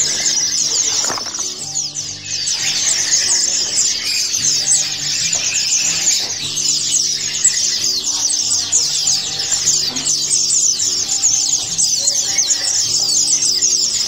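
Many caged small songbirds chirping and twittering all at once in a dense, high-pitched chatter, with music playing softly underneath.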